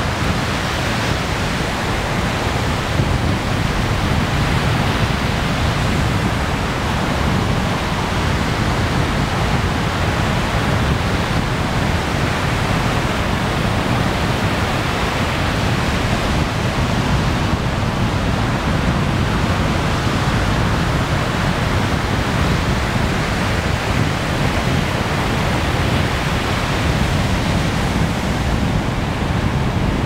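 Ocean surf breaking on a sandy beach, a steady even wash of noise.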